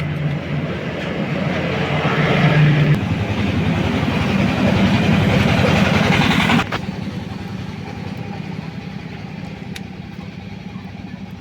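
Motorcycle engine running and building up, louder and higher for a few seconds, then dropping off suddenly about six and a half seconds in to a steady, quieter run.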